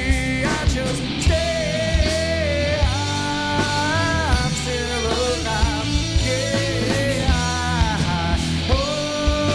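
Rock song from a studio recording: a male voice singing over electric guitars, bass guitar and a drum kit.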